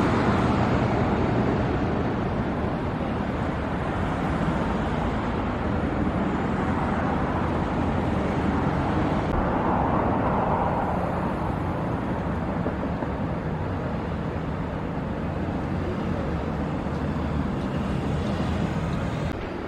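Steady urban road-traffic noise: a continuous hum and rush of passing vehicles on the surrounding streets.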